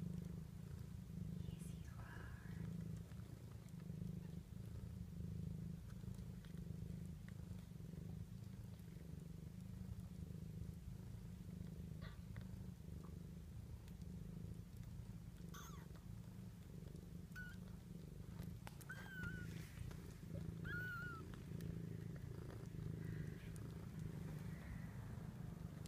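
Mother cat purring steadily as she nurses her two-day-old kittens. A few brief, wavering high squeaks from the newborn kittens come about two-thirds of the way through.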